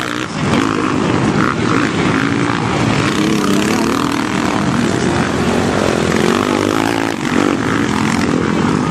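Motocross bike engines running hard, their pitch rising and falling as the riders rev on and off the throttle.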